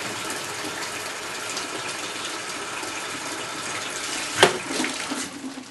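Mains water rushing steadily through the pipework into a bucket at full flow. About four and a half seconds in there is a single sharp snap as the pressure builds on the loosely fitted compression stop end, and the rush of water dies away within the next second as the supply is cut off.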